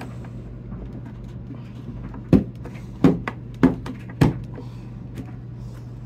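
Four sharp knocks and clacks of hard plastic parts of a vacuum cleaner being opened and handled, a little over half a second apart, over a steady low hum.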